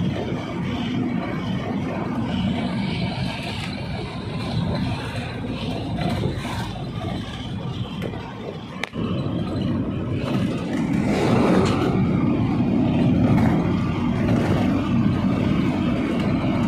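Pickup truck driving at speed on a highway, its engine and tyre noise heard from inside the cab as a steady rumble. It swells louder about two-thirds of the way through, and there is a single sharp click about nine seconds in.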